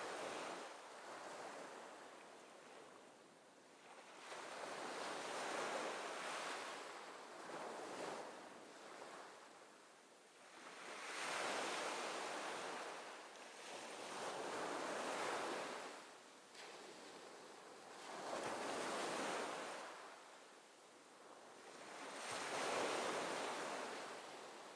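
Waves washing in slow swells, each rising and falling over a few seconds, about six in all.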